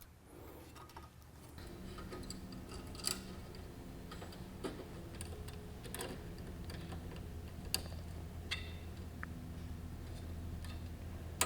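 Sparse small clicks and taps of steel bolts and nuts being fitted through an aluminium door handle and its latch, over a steady low hum.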